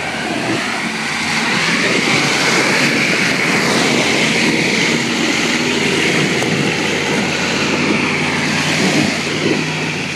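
A Jeep's engine running hard under load as it ploughs through a deep mud hole, its tires churning and throwing mud and water in a loud, steady rush; it passes close by and pulls away.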